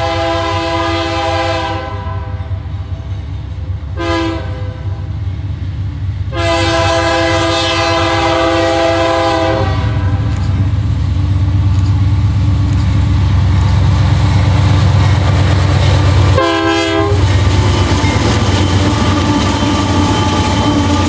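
Freight diesel locomotive's multi-chime air horn sounding for a road crossing. A blast ends about two seconds in, a short toot comes around four seconds, a long blast runs from about six to nine and a half seconds, and another short toot sounds near the end. From about ten seconds on, the locomotives pass close by with a loud, steady diesel engine drone and rail noise.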